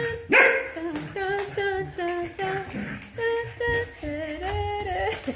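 A person humming or singing a tune in short held notes that step up and down.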